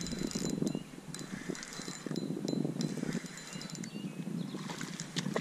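Fishing reel being cranked in uneven spells while reeling in a hooked bass: a mechanical whirring with faint clicks.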